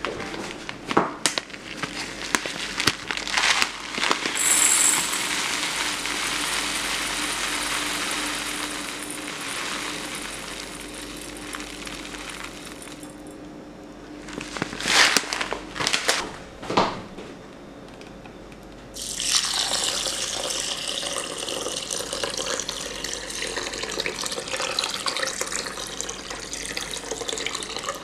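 Dried split mung beans poured from a plastic bag into a ceramic bowl, pattering and rustling with scattered clicks, and then a few sharp knocks. For the last third, water is poured over the beans, a steady splashing fill of the bowl.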